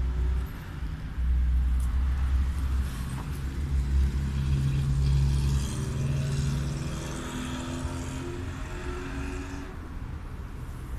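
Low rumble of a motor vehicle running, with a pitched engine hum in the middle.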